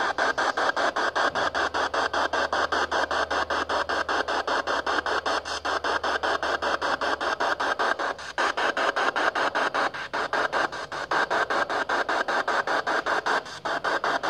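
PSB7 spirit box sweeping through radio stations: a steady hiss of static chopped into rapid, even pulses, several a second, as it scans.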